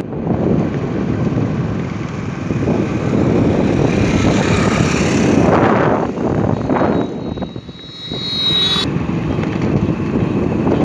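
Wind rushing over the microphone and a moving vehicle's running noise as it drives along a road. A thin high-pitched tone joins about seven seconds in and cuts off suddenly near nine seconds.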